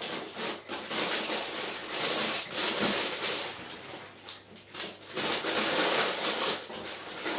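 Irregular rustling and scuffling noise that swells and fades in waves of about a second, with small clicks and no calls.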